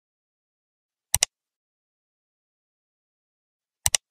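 Two double mouse-click sound effects, one about a second in and one near the end, with dead silence between. They are the clicks of an on-screen subscribe-and-like button animation.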